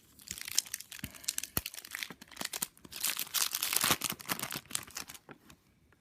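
A foil trading-card pack being torn open, its wrapper crinkling and crackling, loudest and densest about three to four seconds in.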